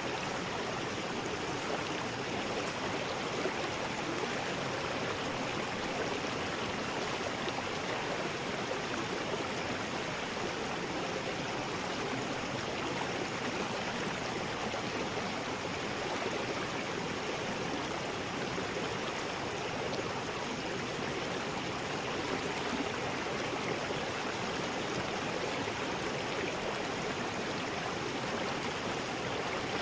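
River rapids: fast water rushing over rocks, a steady, even roar of water.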